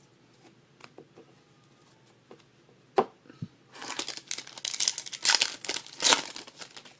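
Foil trading-card pack wrapper torn open and crinkled, after a few light card-handling ticks and a sharp click about three seconds in.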